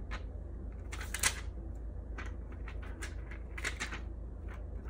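Clear plastic film handled by hand, a series of short crinkles and clicks, the loudest about a second in and another cluster just before the end, over a steady low hum.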